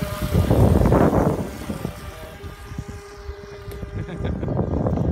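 Small motor of a remote-controlled boat running with a steady whine. Two loud rushes of noise break over it, one about a second in and one near the end.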